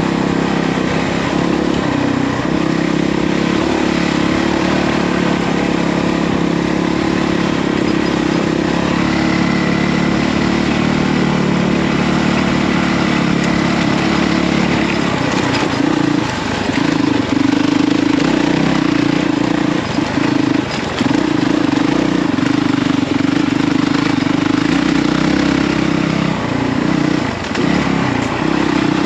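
Honda CRF450RL's single-cylinder four-stroke engine running, steady for the first half, then rising and falling with short dips as the throttle opens and closes.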